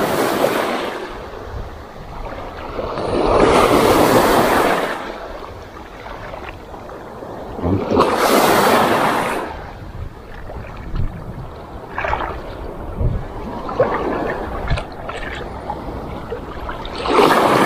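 Small sea waves breaking and washing through knee-deep shallow water, surging loudly four times between quieter stretches of wash.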